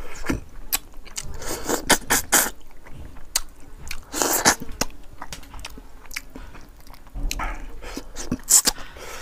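Close-up eating sounds of a man biting and chewing pieces of a boiled fish head by mouth: a run of short wet clicks with a few brief louder noisy bursts, the strongest about four seconds in.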